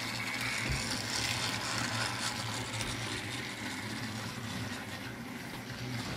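Battery-powered Thomas & Friends TrackMaster toy train engines running on plastic track: a steady whir from their small electric motors with a constant low hum.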